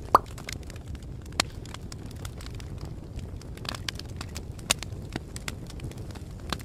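Fireplace fire crackling: a steady low rumble with scattered pops and snaps. A short rising squeak about a quarter-second in is the loudest sound.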